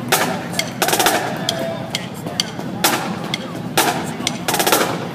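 Marching band drumline playing a cadence: snare drums, Pearl marching bass drums and cymbals, with several loud crashes spread through and a run of rapid snare strokes about a second in, over many small stick clicks.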